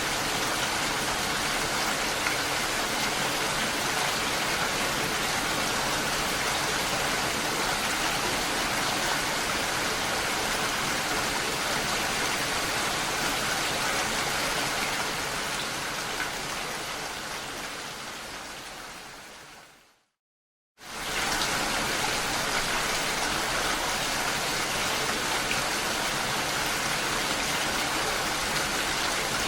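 Steady heavy rainfall, a dense even hiss. About two-thirds of the way through it fades out into a second of silence, then cuts straight back in at full strength, like the seam of a looped rain recording.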